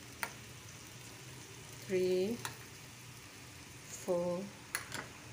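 Onion and tomato masala sizzling in hot oil in a pan as tomato puree is spooned in, with a few sharp clicks of a metal spoon against the pan. A woman's voice is heard briefly twice.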